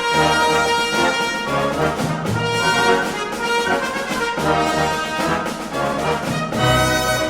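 Brass-led orchestral intro music with a steady bass beat.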